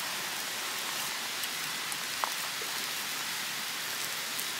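Steady, even hiss with a faint tick or two.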